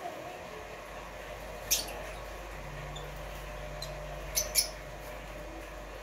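Rosy-faced lovebirds giving short, sharp, high-pitched squeaky chirps: one a little under two seconds in, then a quick pair just after four seconds, over a low steady hum.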